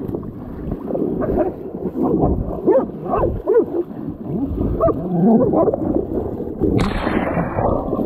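A wild hog held by a catch dog, giving repeated short, sliding squeals and grunts as it struggles in shallow muddy water. A burst of water splashing comes near the end.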